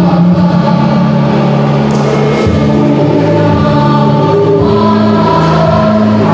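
School choir singing in parts, holding long chords that shift to new notes every second or so.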